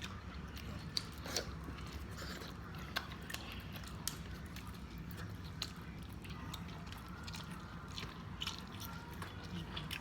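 People eating a seafood boil of crab legs and shrimp: scattered small clicks and crunches of biting, chewing and handling shells, over a low steady hum.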